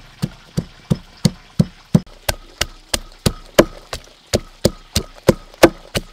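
Wooden pestle pounding garlic cloves and red chili in a mortar: steady, evenly spaced thuds, about three a second.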